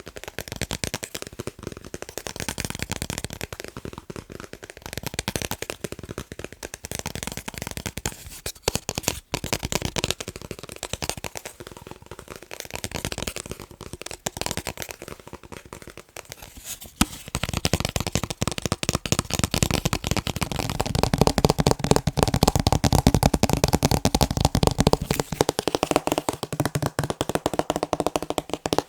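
Fast tapping on picture frames: rapid clicking in short runs, then from about two-thirds of the way in a louder, denser, fuller-sounding stretch of tapping.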